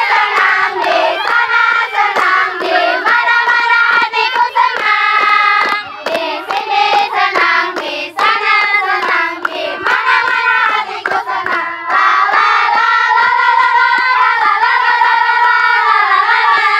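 A group of girls singing together in unison, clapping their hands along with the song.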